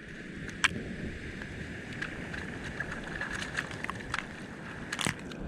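Wind rumbling on the microphone over the steady rush of surf on the shore, with two sharp clicks, one about half a second in and one near the end.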